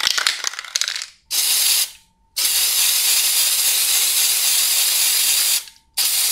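Aerosol spray-paint can sound effect: a second of rapid rattling clicks, then a short hiss of spray, a long steady hiss of about three seconds, and another short burst of spray near the end.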